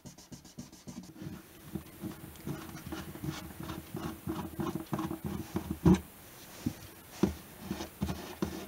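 Small irregular scrapes, clicks and taps as a screwdriver turns out the screws holding an acoustic guitar's bridge and the bridge is handled, with one louder knock about six seconds in.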